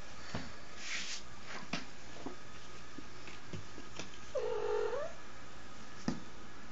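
A young kitten gives one short, yowling growl of under a second, a little past the middle, the warning sound of a kitten guarding a toy from its littermate. Scattered light taps and knocks of paws and the toy on a wooden floor come before and after it, with a sharper knock near the end.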